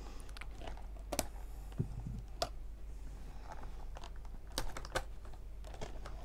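Small clicks and light rustling of a doll's plastic and card packaging being handled by hand as the doll is worked free of its backing card, with a few sharper clicks spread through.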